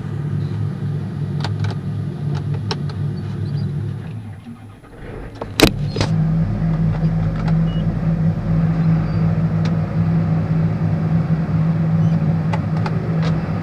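John Deere tractor's diesel engine running steadily, heard from inside the cab. About four seconds in, the engine note sinks and fades for a moment, then a single sharp knock comes and the engine is steady again.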